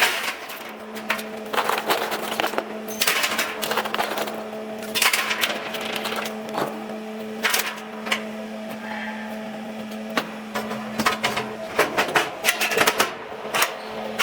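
PCB disassembly machine running: a steady motor hum under irregular, rapid clattering and clicking, with louder sharp clacks every second or so.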